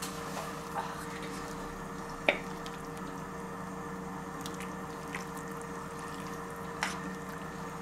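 A ladle scooping stew out of a cast-iron Dutch oven, with wet squishing and dripping and a few sharp clinks of the ladle on the pot, the loudest about two seconds in. A steady low hum sits underneath.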